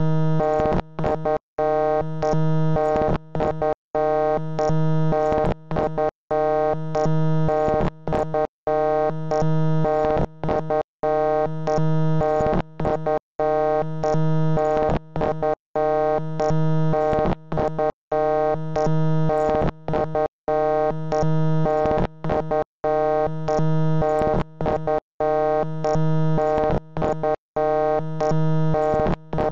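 Harsh synthesized electronic tone, many pitches sounding at once, loud and unchanging, repeating in a loop with a brief cut-out about every two seconds and smaller stutters in between.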